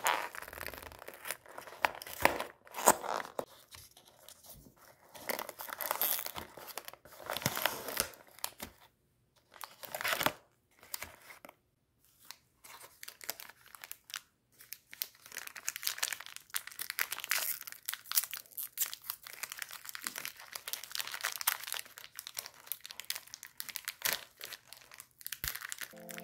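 A cardboard snack box being opened, then its foil-wrapped wafer packets crinkled and torn open. Rustling comes in separate spells with short pauses at first, then runs more steadily through the second half.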